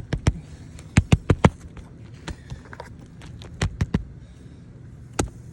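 Sharp knocks and taps of work on a shingle roof: a few quick runs of three or four taps about a sixth of a second apart, and single knocks in between.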